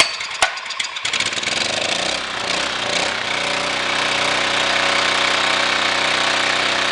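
1200-watt Honda-clone generator engine pull-started on choke: a sharp knock or two from the recoil start, then it catches about a second in and settles into steady running. It now runs on its freshly cleaned carburetor.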